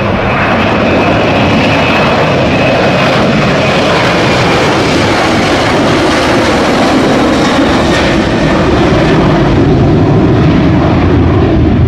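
Twin turbofan engines of a Boeing 737 jet airliner at takeoff thrust as it rolls, lifts off and climbs: a loud, steady jet noise with a faint high whine in the first few seconds, growing a little louder near the end.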